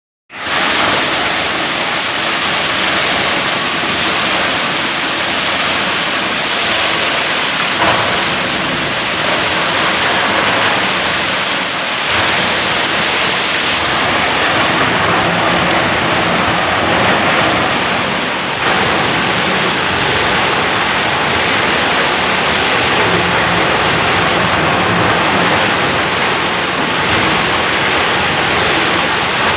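A 30-inch plastic scrap grinder running with a dense, steady noise, with a few sharper knocks about 8, 12 and 18 seconds in.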